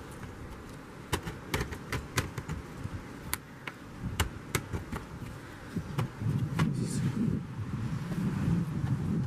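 Sharp, irregular clicks and taps of hard plastic and small tools being handled while a laptop's bottom cover is worked open, with a low rubbing handling noise from about six seconds in.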